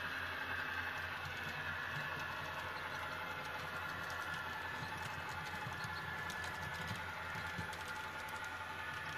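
Model passenger train's wheels clicking and rattling over the track joints as it runs past, the clicks thickest about halfway through, over a steady low hum.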